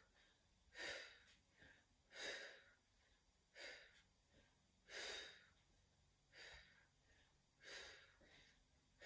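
Quiet breaths, about seven of them, one every second and a half or so, in time with a woman twisting elbow toward the opposite knee in Pilates oblique curl-ups.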